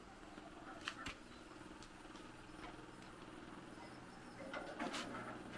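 Hand-tool and metal-part clinks on a small rice huller that is not running: two sharp clicks about a second in, then a short cluster of clinks and rattles near the end.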